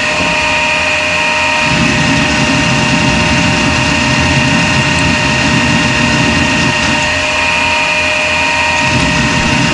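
CNC lathe running a turning program, cutting a shoulder on the end of a steel pin: a steady whine of several fixed pitches over a lower churning that drops out briefly a few times.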